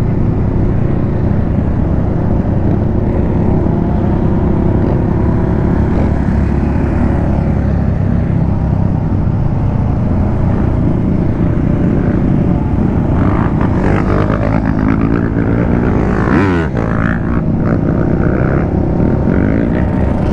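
Motorcycle under way: its engine runs steadily under a heavy rush of wind on the microphone. From about two-thirds of the way in, an engine revs for a few seconds, its pitch sweeping up and down.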